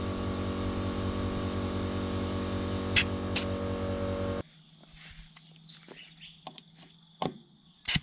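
Air compressor running steadily while a tyre is pumped up, with two sharp clicks about three seconds in. It stops suddenly about four and a half seconds in, leaving only faint clicks and a couple of sharper ones near the end.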